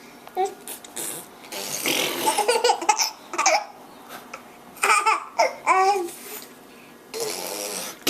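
A baby giggling in short high bursts. Between the giggles come two longer breathy, hissing stretches: fart sounds blown to make the baby laugh.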